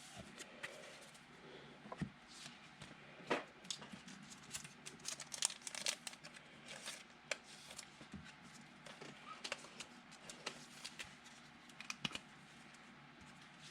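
Football trading cards being handled and sorted by hand: faint rustling with scattered soft clicks and taps as cards slide against each other and are set down.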